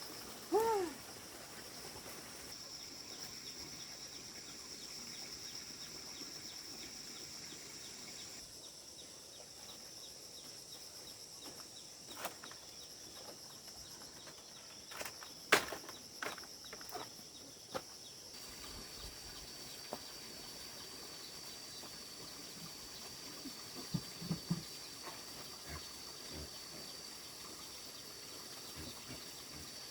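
Outdoor ambience of steady high-pitched insect chirring, with a short pitched call about half a second in and a few scattered sharp knocks and clicks midway.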